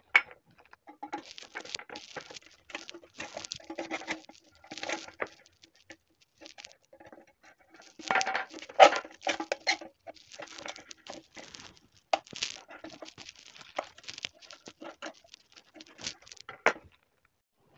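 Metal shears cutting a hole in the side of an empty tin can: irregular crunching snips through the thin sheet metal, with the can ringing briefly after some cuts. The cutting is busiest about eight to nine seconds in.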